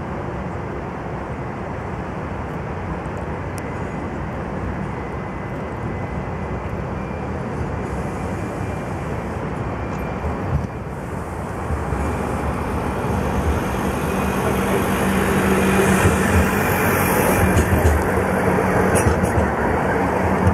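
Electric tram approaching and passing close by. Its steady low hum and the rumble of its wheels on the rails grow louder from about halfway through and are loudest in the last few seconds, over a steady wash of city traffic noise.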